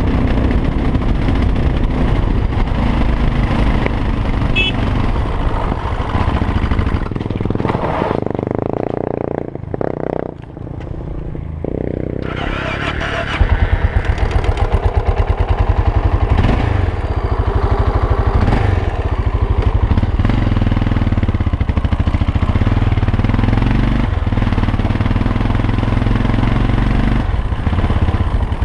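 Honda NX650 Dominator's single-cylinder engine running under way on a gravel track. It drops quieter for a few seconds around the middle, then comes back louder with a steady, even pulsing beat.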